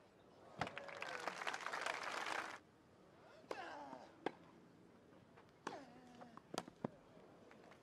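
Crowd applauding for about two seconds after a point on a grass tennis court, then the sharp pops of racquets striking the ball in a rally, some shots with a player's short falling grunt.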